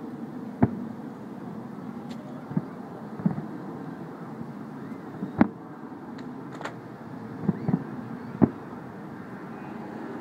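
Distant fireworks bursting: about seven sharp booms at irregular intervals, a second or two apart, over a steady low background noise.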